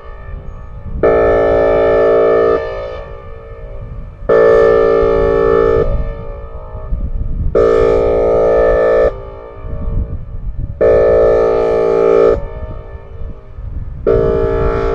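Whelen Vortex electronic outdoor warning siren sounding its Air Horn test signal: five steady-pitched horn blasts, each about a second and a half long, starting and stopping abruptly with short gaps between.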